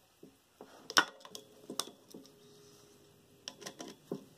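Metal clicks and scrapes of tongue-and-groove pliers gripping and wrenching the steel cage of a failed ball bearing on a motor shaft, the sharpest click about a second in and a few more near the end.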